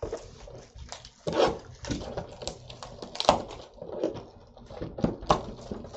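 Shrink-wrapped cardboard trading-card box being handled: the plastic wrap crinkles and crackles in irregular bursts, with a few louder snaps and knocks from the box.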